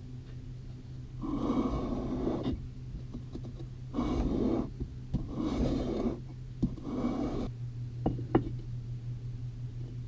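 Steel chisel being rubbed back and forth on a sharpening stone: four gritty scraping strokes of about a second each, with a couple of light clicks near the end over a steady low hum.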